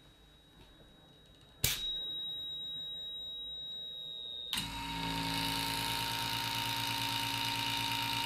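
A click about a second and a half in, then the steady high-pitched tone of a piezo buzzer. About four and a half seconds in, an electric vacuum pump starts running with a steady motor hum and hiss, much louder than the buzzer.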